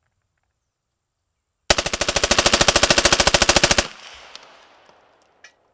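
AR-pattern rifle in .300 Blackout firing one full-auto burst of supersonic 150-grain rounds through a Walker Defense Nero 7.62 muzzle brake. The rapid string of shots starts nearly two seconds in, lasts about two seconds, then the echo fades away.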